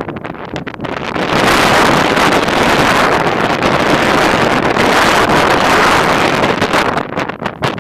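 Gale-force wind buffeting the microphone. A strong gust builds about a second in, holds loud and even, then eases near the end back to gusty flutter.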